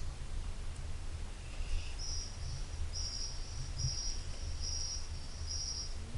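Wetland ambience: an insect calling in short, high, buzzy pulses about once a second, starting about two seconds in, over a low steady rumble.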